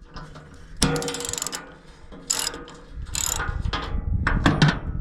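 Socket ratchet wrench clicking in several short runs as bolts on a wood chipper's belt assembly are worked and checked for tightness. A low rumble joins about three seconds in.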